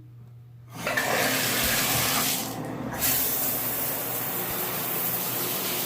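A shower faucet is turned on just under a second in, and its water runs as a steady hiss, with the high part of the hiss dipping briefly around the middle.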